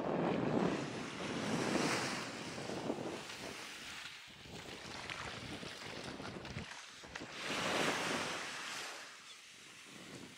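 Wind gusting on the microphone over small waves washing onto a sandy shore, swelling near the start and again about eight seconds in.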